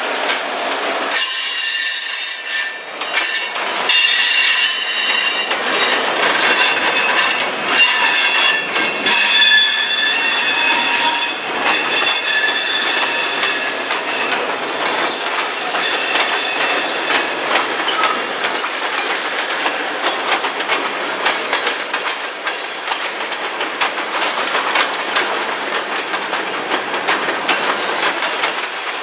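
Freight train of tank cars rolling past, the wheels squealing in several high tones that fade out about halfway through. This gives way to a steady clatter of wheels clicking over the rail joints.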